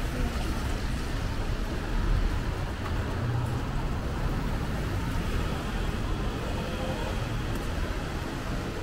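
Steady city street ambience in the rain: road traffic running on wet pavement, an even hiss over a low rumble.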